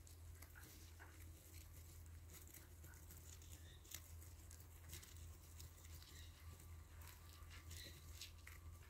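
Faint, scattered soft clicks and rustles of baby hamsters nibbling and sucking at a slice of cucumber in wood-shaving bedding, over a low steady hum.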